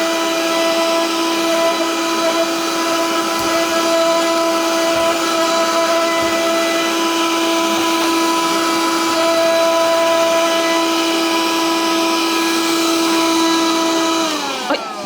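Vacuum cleaner motor running with a steady whine, then switched off near the end, its pitch falling as it winds down.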